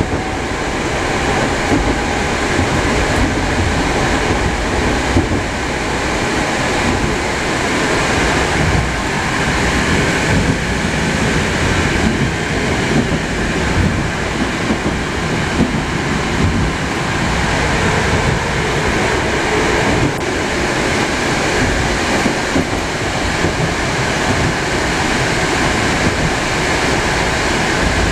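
Inside a moving 81-765.2 metro car: steady running noise of the train, wheels rumbling on the rails, with no break or change in loudness.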